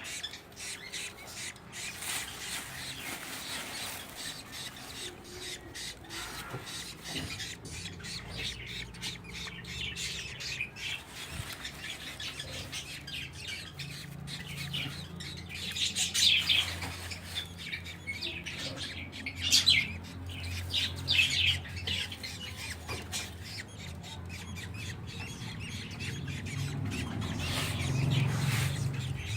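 Budgie chicks squawking and chirping in scratchy, repeated calls, loudest in a few bursts a little past halfway. Wood shavings rustle as they are spread as nest bedding.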